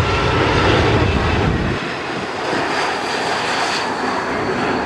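Airliner engine noise, loud and even, with a deep rumble that falls away about two seconds in and leaves a steady hiss.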